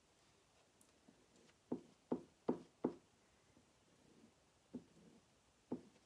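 Small squeegee working chalk paste through a silkscreen transfer on a wooden sign board: a quick run of four short, sharp strokes about two seconds in, then two more single strokes near the end.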